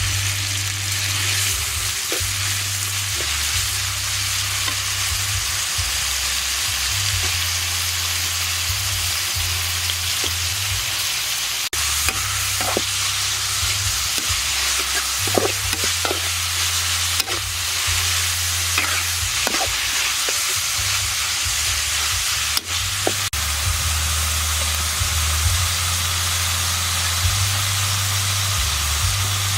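Food sizzling in a hot pan as it is stir-fried, with the spatula now and then scraping and knocking against the pan. A low rumble comes and goes underneath.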